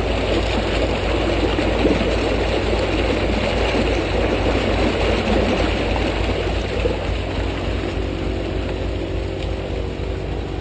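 A vehicle engine idling steadily. For about the first seven seconds a rough rushing noise rides over it, then dies away.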